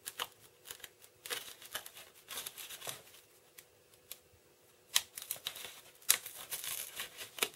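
Hands working EPP foam parts and hinges together, pushing the hinges into slots cut in the foam: irregular rubbing, scratching and crinkling, with two sharper clicks about a second apart in the second half.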